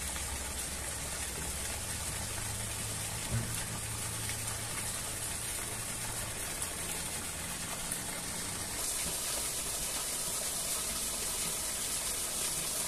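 Steady rushing noise of running water, with a few faint clicks; it grows slightly louder about nine seconds in.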